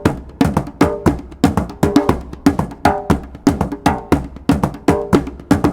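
Background music: a percussive intro built on a steady beat of sharp, knocking hits with short plucked notes, about two beats a second.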